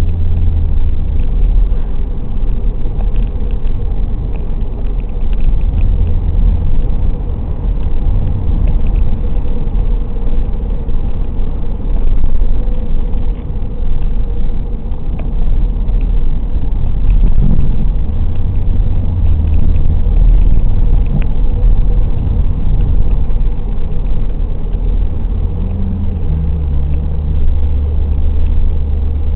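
Car engine and tyre noise heard from inside the cabin while driving: a continuous low drone that shifts in pitch now and then as the engine speed changes.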